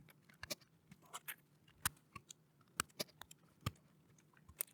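Blade fuses being pulled out of a motorhome relay/fuse board: a string of faint, irregular small clicks and ticks of plastic and metal.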